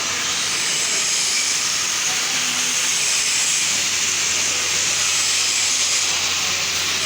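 Electric welding arc giving a steady, even hiss while a weld bead is being run.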